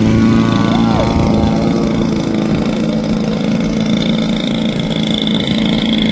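Large RC model airplane's engine running loud and steady at takeoff power on its takeoff run.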